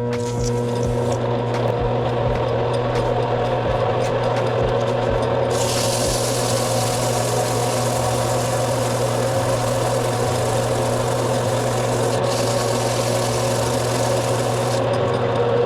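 An electric power tool motor runs with a steady hum. From about five seconds in, a metal part is pressed against the tool and a hissing grind is added, with a brief break near twelve seconds. The grind stops near the end.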